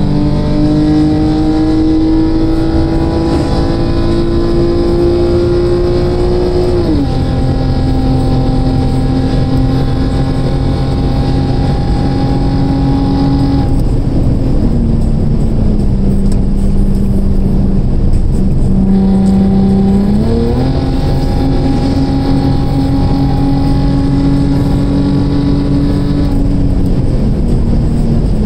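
Infiniti sedan's V6 engine heard from inside the cabin at highway speed. The revs climb slowly and drop sharply with an upshift about seven seconds in, sag a little in the middle, then rise quickly about twenty seconds in and hold steady.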